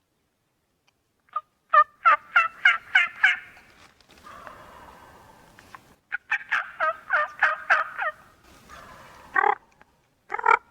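Turkey calling: two runs of quick, sharp notes, each lasting about a second and a half, then a couple of single louder notes near the end.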